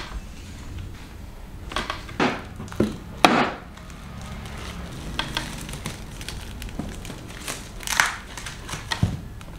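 Wooden shipping crate being opened with a claw hammer and screwdriver: irregular knocks and creaks of the wooden slats, mixed with crinkling of plastic wrap. The sharpest knock comes a little over three seconds in.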